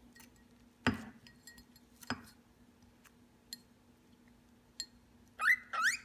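Sharp clinks of a drinking glass, twice loudly and a few times faintly, as a cockatiel drinks from it. Near the end the cockatiel gives two quick rising chirps, louder than the clinks.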